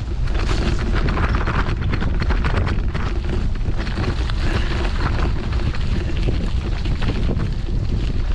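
Heavy wind buffeting a moving microphone, a continuous low rumble, with a dense clatter of small knocks and rattles throughout.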